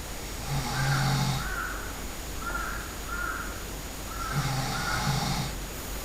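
A sleeping person snoring loudly: two rasping snores about four seconds apart, each a low buzzing breath, with softer breathing sounds between them.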